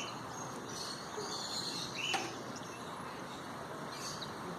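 Pet canaries giving short, soft chirps and calls, with a sharp click about two seconds in, over a steady background hiss.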